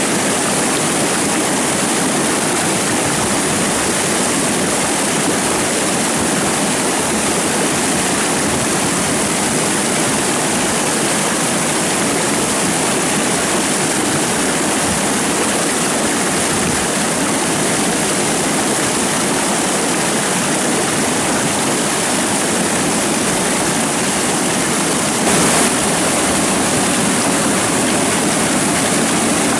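Steady rush of flowing stream water, even and unbroken, with a brief slightly louder moment about 25 seconds in.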